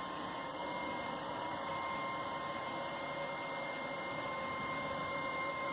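Steady low hiss of room tone with a few faint, steady high-pitched whines running through it.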